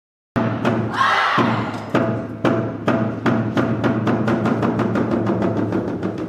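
Korean pungmul percussion ensemble playing pangut: drum and gong strokes start suddenly and come faster and faster over a steady ringing low tone.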